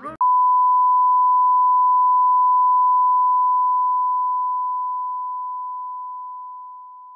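A single steady electronic beep at one pure pitch, held level for about three seconds, then slowly fading away until it cuts off.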